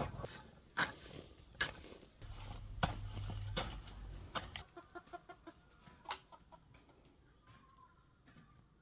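Chickens clucking, with a series of sharp knocks about once a second in the first half.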